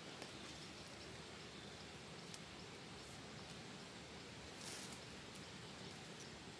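Faint steady outdoor hiss, with a few soft ticks and one brief rustle about three-quarters of the way in from a fishing rod and line being handled.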